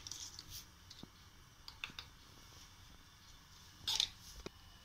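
Quiet kitchen with a few faint clicks and a short soft rustle about four seconds in: a spoon tipping turmeric powder into a pan of water.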